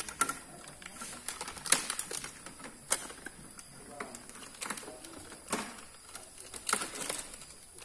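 Irregular clicks and knocks as hands handle the plastic casing of a Sharp split air-conditioner's indoor unit.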